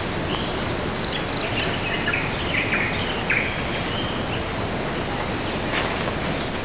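Forest insect chorus, a steady high-pitched drone, with a few short bird chirps that fall in pitch between about one and three and a half seconds in. The sound fades out near the end.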